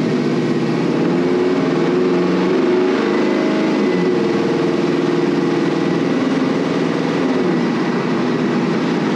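Gen 3 6.0-litre LS V8 in a 1957 Chevy truck, heard from inside the cab while driving: the engine and exhaust pull under acceleration, rising a little over the first few seconds, then holding steady.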